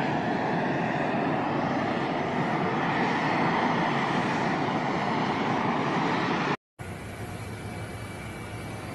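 Steady noise of jet aircraft running on an airport apron. It drops out for an instant about two-thirds of the way through and comes back quieter, with a faint high steady whine.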